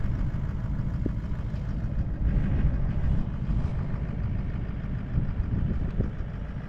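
A motor vehicle's engine running, a steady low rumble.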